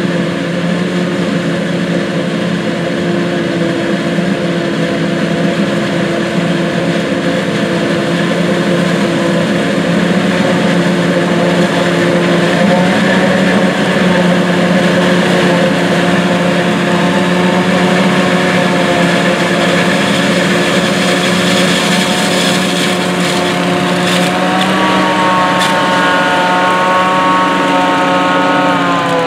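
John Deere 8600 self-propelled forage harvesters chopping corn silage, with the tractors pulling forage wagons alongside: big diesel engines running steadily under load with a constant hum. About 25 seconds in, a higher whine joins and rises in pitch, then the pitch starts to fall at the very end.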